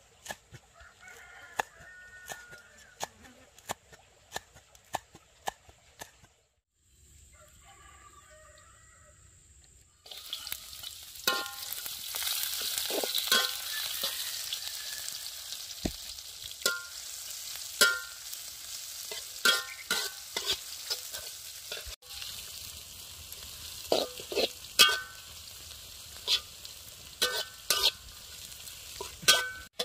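A cleaver chopping on a wooden board, about two strokes a second. After a cut about ten seconds in, chopped chillies, shallots and garlic sizzle as they fry in a wok, with a metal spatula clanking and scraping against the pan. Chickens call now and then in the background.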